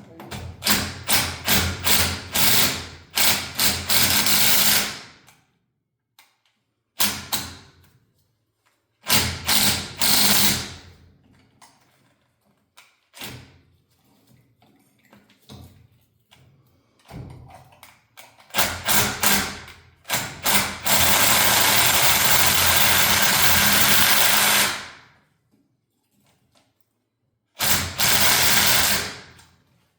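Impact gun with a 3/16 Allen bit hammering at hex-socket bolts on a backhoe's hydraulic control valve block. It runs in repeated bursts of a second or two, with one longer run of about four seconds past the middle, as the bolts resist coming loose.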